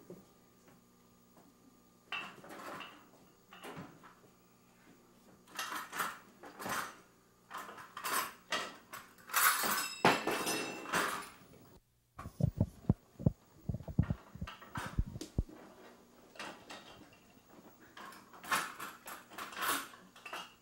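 Dishes and kitchenware clattering and clinking at a counter as they are handled and set down, in scattered bursts, with a short run of low thumps about twelve seconds in.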